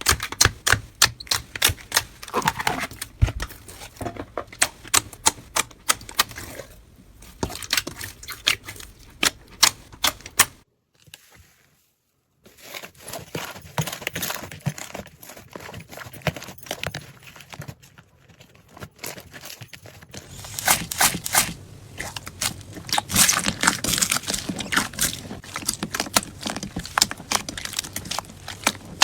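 Slime being squished and poked by hand, giving rapid runs of sticky clicks and small pops. There is a brief silence about eleven seconds in.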